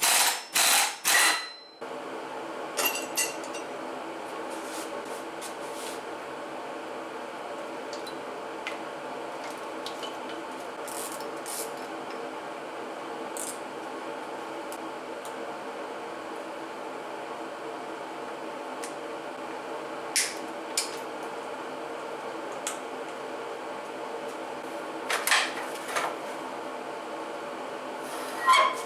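Hand tools clinking and knocking on metal parts as an outboard engine is taken apart, a few loud knocks in the first second or two and then scattered clicks, over a steady background hum.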